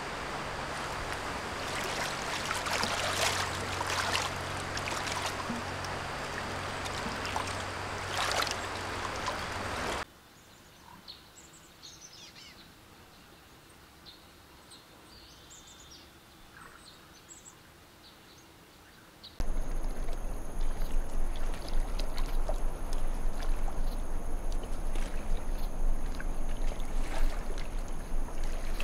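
Water running in a rocky stream, a steady noise with scattered splashes, cuts off suddenly about ten seconds in to a faint outdoor background. A little past halfway, a louder steady noisy ambience with a low hum and thin high steady tones starts suddenly.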